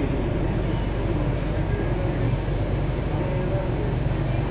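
Running noise heard from inside a Singapore MRT C751A metro car, a Toshiba IGBT-VVVF-driven train, moving through a tunnel. There is a steady low rumble of wheels on rail and a thin, constant high tone over it.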